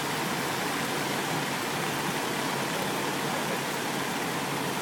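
Steady hiss of heavy rain falling on a flooded street, with no distinct events.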